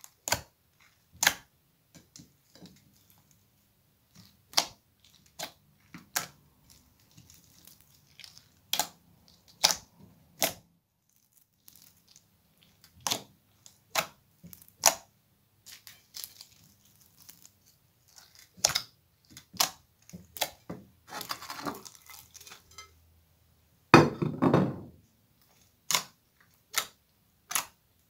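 Clear glitter slime packed with beads being kneaded and pressed by hand: a string of sharp, sticky pops and clicks at an uneven pace, with one louder, longer squelching thud near the end.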